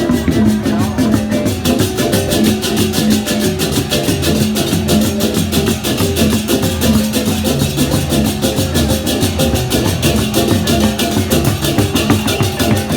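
Balinese gamelan music: a fast, even rhythm of clashing strokes over sustained low pitched tones.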